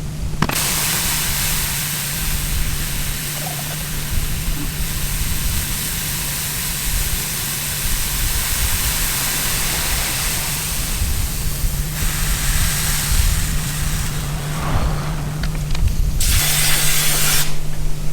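Grain truck's engine idling with a steady low hum, under a loud rushing hiss that starts suddenly about half a second in and stops about twelve seconds in. A shorter burst of the same hiss comes near the end.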